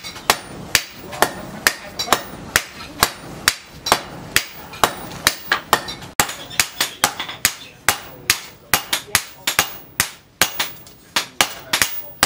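Hand hammer striking a red-hot steel knife blade, made from an old chainsaw part, on a round steel post anvil: sharp metallic blows at a steady pace of about three a second.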